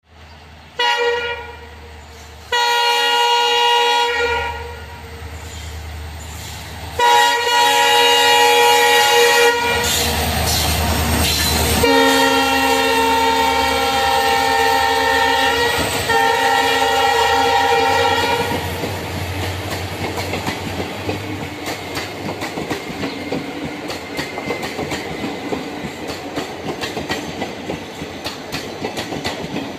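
Passenger express train passing at high speed. Its locomotive sounds a series of long horn blasts in the first half, then the wheels clatter rapidly over the rail joints as the coaches rush by.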